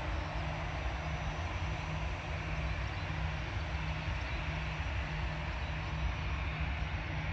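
Steady jet aircraft engine noise with a deep rumble, unchanging throughout.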